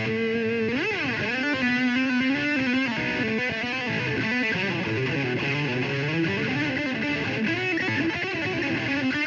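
Distorted electric guitar playing lead. A held chord gives way about a second in to a quick swoop up and back down in pitch, followed by wavering, sliding single notes with wide vibrato.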